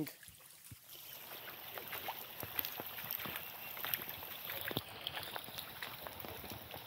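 Heavy rain falling on a flooded flat roof: a steady hiss of rain with many sharp drop ticks scattered through it, a little quieter in the first second.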